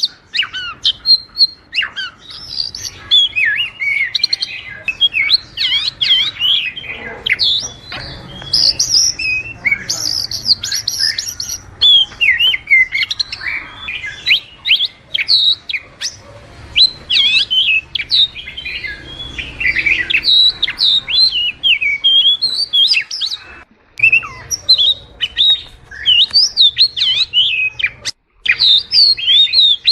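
Oriental magpie-robin (kacer) singing a rapid, varied song of whistles and chirps without pause, with two brief breaks in the last third.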